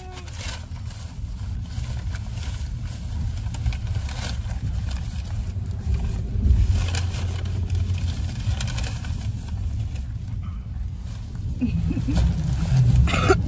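Low rumble of a car's engine and road noise heard inside the cabin, with short crinkles of a paper food bag.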